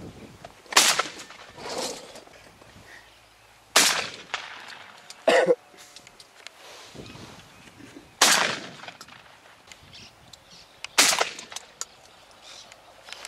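Shotgun shots at flying doves: about five sharp reports spaced unevenly a few seconds apart, one of them fainter. A brief pitched call sounds about midway.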